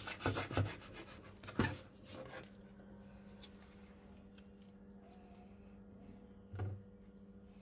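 A kitchen knife slicing raw chicken skin and scraping on a wooden cutting board, a few short scrapes in the first two seconds or so. A steady low hum follows, with a single soft knock near the end.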